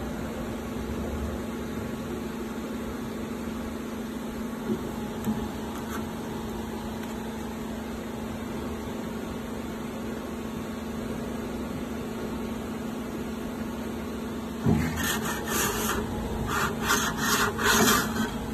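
Wood dowel sanding machine running with a steady motor hum. About fifteen seconds in, a wooden dowel is fed against the abrasive sanding belt and loud, uneven rasping of the sanding starts.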